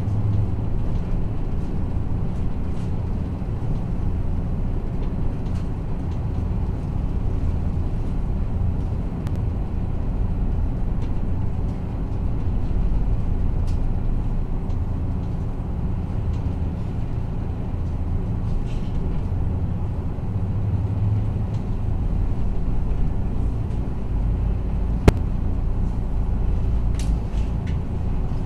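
Inside a KiHa 54 diesel railcar: the steady low drone of its diesel engines, with a few light clicks and rattles of the car body and one sharp click near the end.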